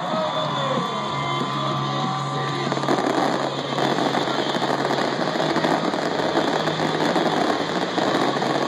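Fireworks going off in quick succession, turning into a dense, rapid crackle from crackling stars about three seconds in.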